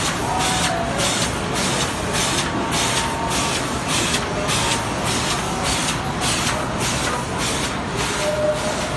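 Automatic vertical film laminating machine running, with a regular hissing pulse about twice a second over a steady mechanical drone.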